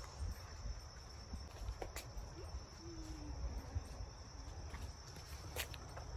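Faint, steady high-pitched trill of insects, over a low rumble, with a few soft clicks.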